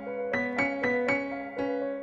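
Background piano music: single notes struck every quarter to half second over a held low note.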